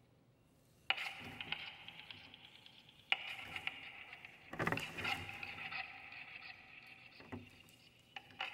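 Thin strips of a hand-built sound object set vibrating: sudden attacks about a second in, at about three seconds and near five seconds, each followed by a lasting, rattling ring, with a smaller knock near the end.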